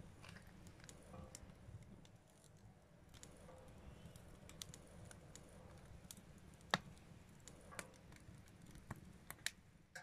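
Wood fire crackling inside a steel washing-machine-drum fire pit: sparse, irregular pops and snaps, the sharpest about seven seconds in, over a faint low rumble.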